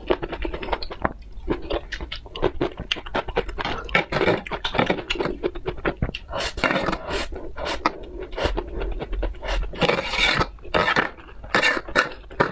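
Close-miked ASMR eating sounds: pink noodles slurped and chewed, with many sharp wet mouth clicks and a longer slurp about ten seconds in. Occasional scrapes of chopsticks and fingers on the tray.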